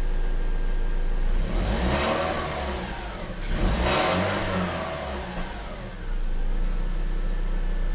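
BMW E46 four-cylinder engine idling, then blipped twice, its pitch rising and falling each time, before settling back to idle. It has a rough idle from cold, which the owner suspects comes from a failing ignition coil. The exhaust is a little noisy with one resonator removed.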